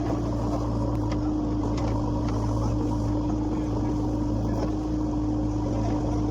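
Heavy diesel engine running steadily at a constant speed, with a few faint knocks from the loading work.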